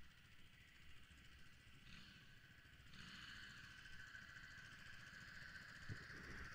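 Faint sound of a cruiser motorcycle's engine running at low speed as the bike rolls up close: a low rumble, with a steady higher hum joining about three seconds in.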